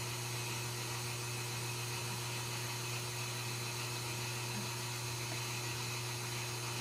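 A steady low hum with an even hiss behind it and no distinct events, like a fan or electrical background noise.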